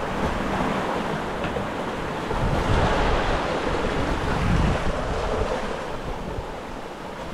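Strong wind buffeting the microphone over the rush of breaking seas alongside a sailboat in 30-plus-knot wind and 10-foot-plus swells. It gets louder a few seconds in, then eases toward the end.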